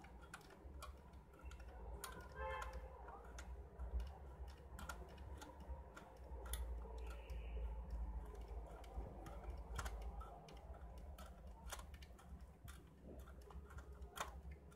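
Faint, irregular light clicks and taps from hands handling the ZCUT-2 tape dispenser's plastic cover and tape feed, over a low steady hum.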